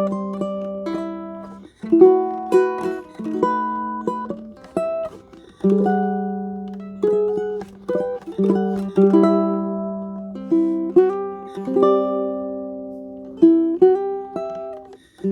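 Acoustic plucked-string instrument with a torrefied spruce top and mahogany body, played fingerstyle: a melody of single plucked notes and chords, each note ringing and then fading.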